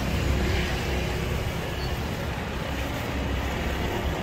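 Street traffic: the steady low rumble and hum of vehicles on the road.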